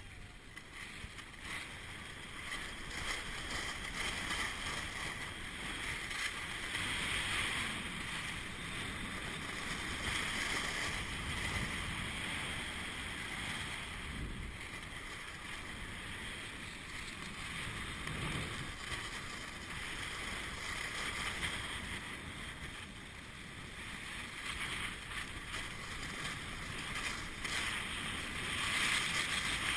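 Skis hissing and scraping over packed, groomed snow during a downhill run, with wind rushing over the camera microphone. The noise rises and falls.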